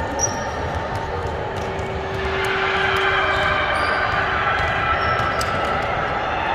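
Echoing gym noise during a basketball scrimmage: a steady hum of the hall with occasional basketball bounces and short high squeaks.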